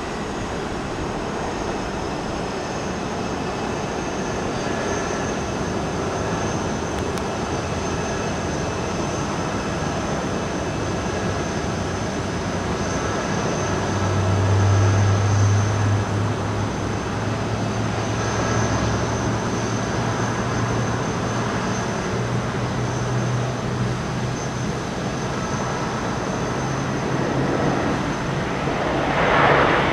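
Jet airliner engines running steadily, with a faint high whine; a deeper hum swells about halfway through, and the sound briefly gets louder near the end.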